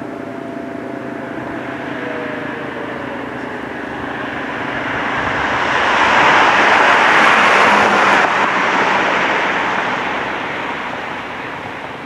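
A siren's tones slide slowly down and fade out in the first few seconds, typical of a rotating warning siren winding down. Then a vehicle passes: a broad noise swells to its loudest in the middle and fades away.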